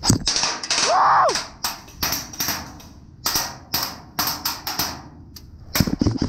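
Airsoft skirmish sounds: a string of sharp, irregularly spaced cracks and pings from shots and BBs striking around a corrugated steel barricade. A short rising-and-falling tone sounds about a second in.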